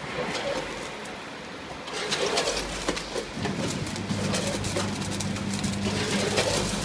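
Multihead weigher running with foil-wrapped chocolate pralines: a dense rattle of clicks from about two seconds in as the sweets tumble through the hoppers, then a steady low machine hum from about three seconds in.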